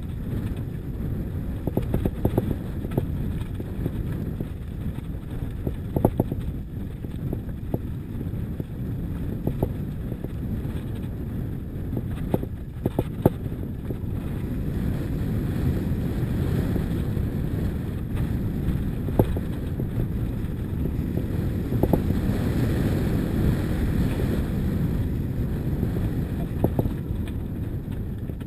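Wind buffeting the microphone of a bike-mounted action camera, over a steady rumble of tyres rolling on a loose gravel and stone track. Sharp knocks and rattles come now and then as the bike hits stones, with a cluster of them about halfway through.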